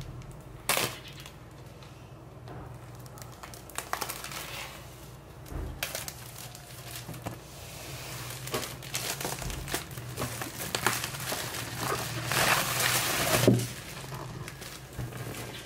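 Clear plastic shrink-wrap being peeled off a MacBook Pro box, crinkling and rustling with scattered taps and clicks. The crinkling grows busier and louder in the second half, loudest near the end.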